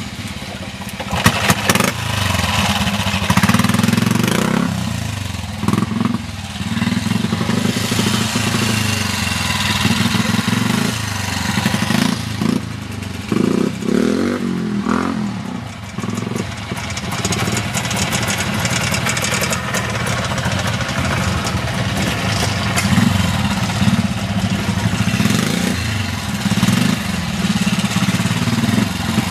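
Vintage trials motorcycle engines running at low revs, the throttle opened and closed in short bursts so the engine note keeps rising and falling, with one longer rev climbing in pitch about halfway through.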